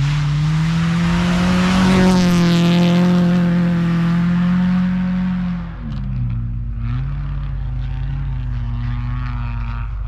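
1998 Subaru Impreza 2.5RS rally car's flat-four engine held at high revs under load, with a hiss of tyres and spraying snow. About six seconds in the revs drop sharply, and the engine then runs steadily at a lower pitch.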